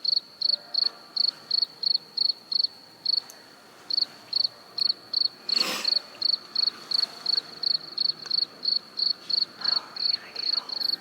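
A cricket chirping steadily, short high-pitched chirps about three times a second, with one brief pause a few seconds in.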